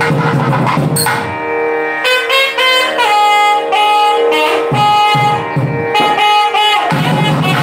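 Nadaswaram playing a Carnatic melody in held, stepping notes over a steady drone, with thavil drum strokes at the start and again near the end. The melody comes in about two seconds in.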